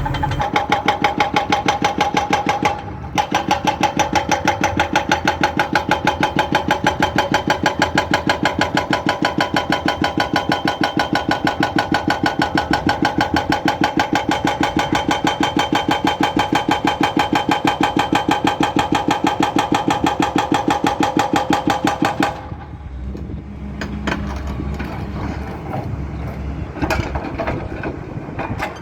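Excavator-mounted hydraulic breaker hammering in rapid, even blows with a ringing metallic tone. It breaks off briefly about three seconds in, then stops well before the end, leaving the Zoomlion excavator's engine running with a few scattered knocks.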